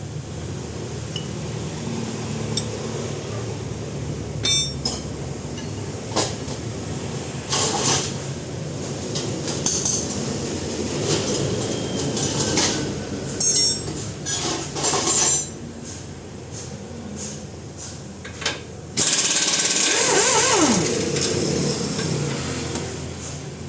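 Repair-shop tool noise: scattered sharp metal clanks and knocks over a steady mechanical background, then a loud harsh burst of about three seconds near the end that falls in pitch as it winds down.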